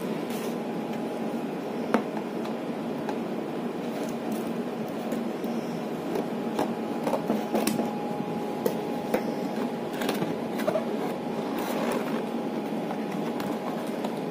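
A cardboard box being opened by hand: scattered taps, scrapes and rustles as the flap is pulled open and the card insert is drawn out. A steady room hum runs underneath.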